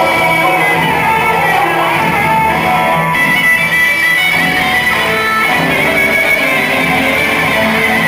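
Loud music playing steadily as the dance accompaniment.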